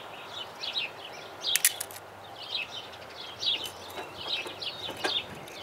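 Wooden fuel sticks clacking against each other and the stove as they are set into a rocket stove's fuel shelf, with a few sharp clicks, the loudest under two seconds in. Small birds chirp throughout in the background.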